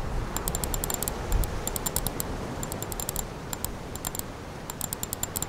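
Computer keyboard typing: irregular runs of quick key clicks, with a soft low thud about a second and a half in.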